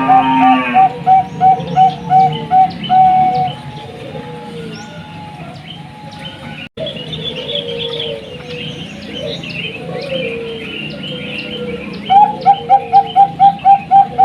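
Bangkok-type perkutut (zebra dove) song: a fast run of short, staccato coos, about four a second, for the first few seconds and again near the end. In between come quieter, slower coos and higher chirps, broken by a split-second gap in the middle.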